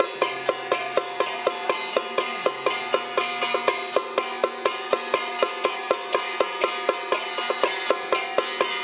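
Traditional Taiwanese temple-troupe percussion: drum strokes and clashing gongs and cymbals in a steady, even beat of about three strokes a second, with the metal ringing on between strokes.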